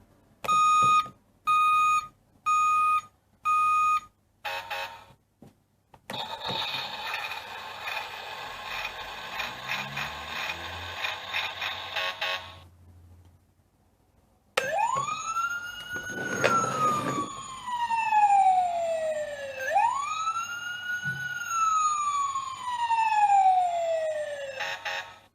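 Electronic sound effects from a Fisher-Price Little People fire truck toy. First come four short, steady beeps about a second apart, then a harsh, buzzy noise for about six seconds. After a short gap, a siren wails up and slowly down twice.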